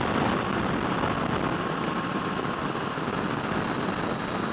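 Triumph Tiger 800 three-cylinder motorcycle cruising at steady speed, with heavy wind rush buffeting the microphone over the engine.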